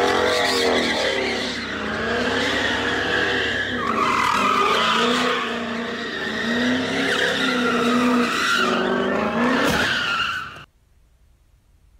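A car doing donuts on concrete: its engine revs up and down while the tyres squeal and skid continuously, until the sound cuts off abruptly about two seconds before the end.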